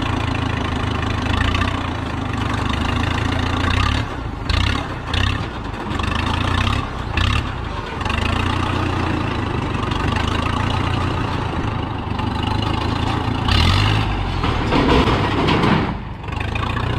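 A heavy engine running steadily, with several brief surges in level and pitch.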